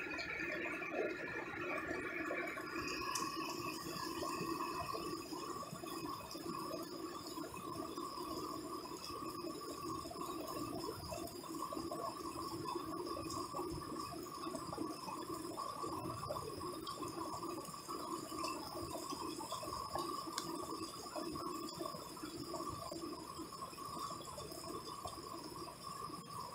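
Heavy rain pouring steadily and splashing on pavement and roofs during a night storm, with a faint steady high-pitched tone joining about three seconds in.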